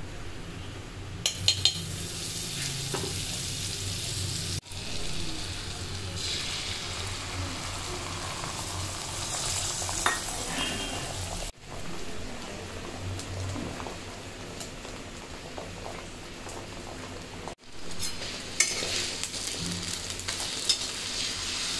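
Beaten egg frying in hot oil in a non-stick kadai, a steady sizzle that cuts off briefly three times. Near the end come a few scrapes and taps of a metal spatula against the pan as the omelette is turned.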